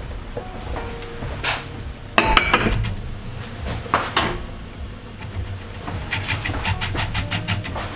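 Glass lid set onto an amber glass pot of boiling soba, clinking and ringing briefly about two seconds in, among a few sharp glass clicks. A fast run of light clicks follows near the end, over a steady low rumble.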